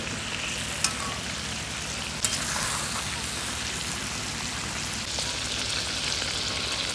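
Chicken leg pieces and whole tomatoes sizzling in hot ghee in a karahi, a steady frying hiss. Two sharp clicks of the metal spatula against the pan come about one and two seconds in.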